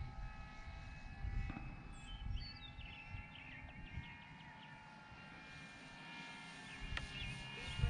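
Electric motor and propeller of a Flex Innovations RV8 G2 60E radio-controlled plane flying overhead at a distance, giving a faint, steady whine. Wind rumbles on the microphone.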